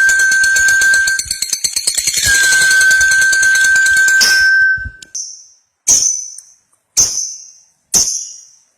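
Lovebird giving its long 'ngekek' chatter: a rapid, dense, high-pitched trilling with a steady whistle-like tone under it, breaking off about five seconds in. Then four short, sharp high chirps follow, about a second apart.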